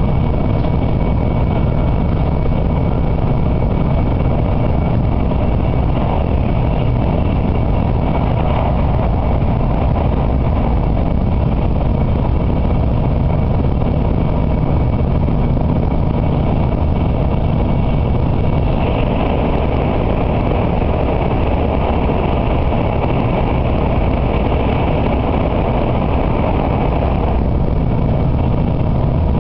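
Steady running noise of an N700A Shinkansen at speed, heard inside the passenger cabin: a loud low rumble with a hiss that grows brighter about two-thirds of the way through.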